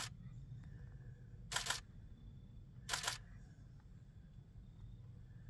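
Camera shutter firing three times, about a second and a half apart, each a quick double click, over a low steady rumble.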